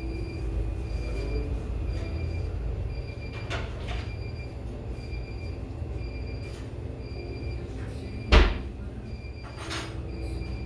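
Cafe background ambience: a steady low hum with a few light clicks, and one sharp knock about eight seconds in, followed by a softer clatter.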